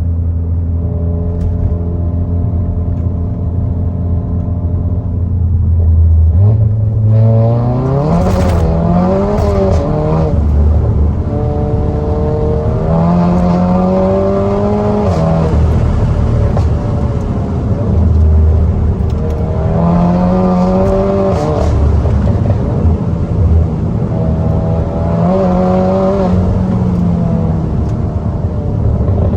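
SEAT Leon Cupra's turbocharged 2.0-litre four-cylinder, with a downpipe fitted and the resonator deleted, running at a steady low drone. About six seconds in the revs climb, and the engine then rises and falls in pitch over several pulls, roughly every six seconds.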